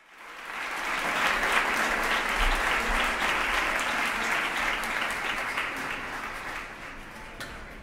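Concert audience applauding, the clapping swelling up within the first second and dying away gradually toward the end.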